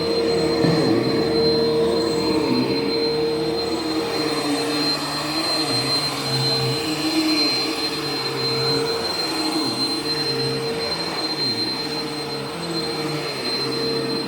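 Vacuum cleaner running steadily, its motor giving a constant high whine over a rushing noise.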